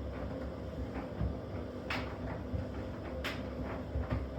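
Washing machine running with a brick loose in its drum: a steady low rumble and hum, with sharp knocks about two seconds in and again a second or so later as the brick strikes the drum.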